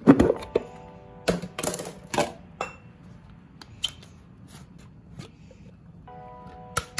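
A sharp plastic clatter as the lid is pulled off a plastic salad bowl, followed by scattered clicks and taps of a plastic blender cup being handled, with a second cluster of clicks near the end.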